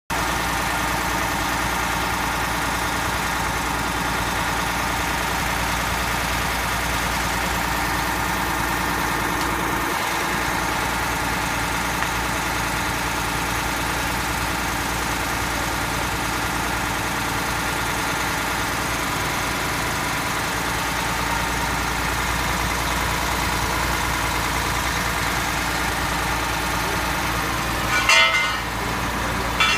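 Fire engine's engine running steadily at idle with a constant hum, and a brief louder noise near the end.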